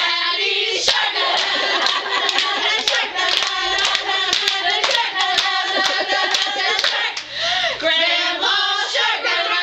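A group of girls singing a clapping song together, with sharp hand claps in rhythm through most of it.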